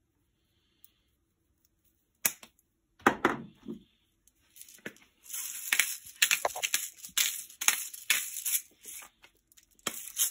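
Handheld spice grinder being twisted, a dense run of crunchy grinding clicks lasting several seconds in the second half. It is preceded by a few sharp clicks and a knock from handling the grinders.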